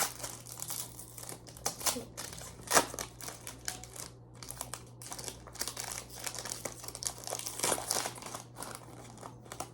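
Foil wrappers of Japanese Pokémon card booster packs crinkling as they are handled, with irregular sharp crackles, one louder about three seconds in.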